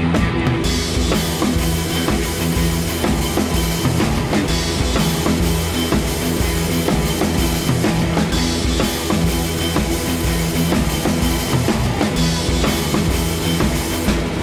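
Rock music with a steady drum-kit beat and bass.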